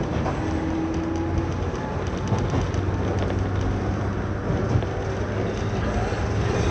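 Running sound inside a 105 series electric train carriage, with its MT55A traction motors under the car. A faint rising motor whine fades about a second and a half in, leaving a steady wheel-on-rail rumble with a few clicks over the rail joints about two to three seconds in.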